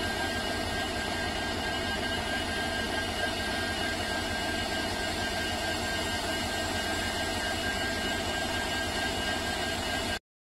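WDG4 diesel-electric locomotive's 16-cylinder two-stroke engine running steadily, with a steady high whine over the engine note. The sound cuts off abruptly near the end.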